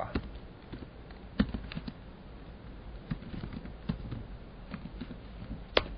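Keystrokes on a computer keyboard as a tar command is typed: scattered light clicks, with one sharper keystroke near the end.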